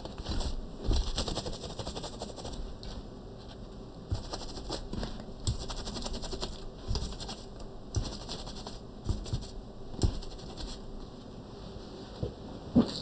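A small brush and a paper tissue scrubbing and wiping a computer circuit board: an uneven scratchy rustle with light clicks and a few sharper knocks. The board is being cleaned of flux around fresh solder joints.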